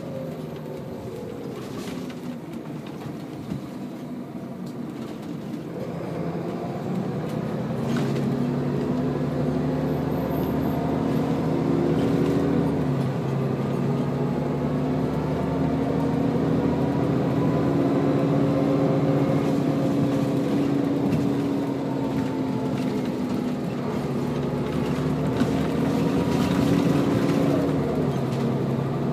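Scania L94UB bus's diesel engine and ZF automatic gearbox heard from inside the passenger cabin as the bus drives. The engine is quiet at first, then pulls harder with a rising note. About halfway through the note drops at a gear change and then climbs again, with another dip and rise near the end.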